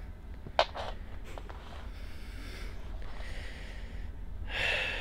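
Close breathing sounds: a short snort about half a second in, and a long breathy sigh starting near the end.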